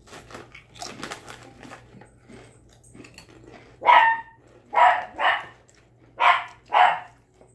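A dog barks five times, a single bark and then two quick pairs, starting about four seconds in. Before that comes faint crunching of potato chips being chewed.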